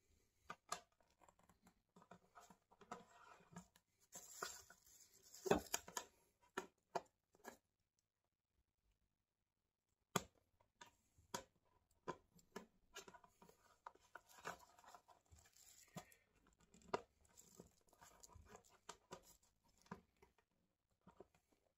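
Close-up crinkling, tearing and clicking of packaging being handled and opened, in irregular bursts with a pause of about two seconds near the middle.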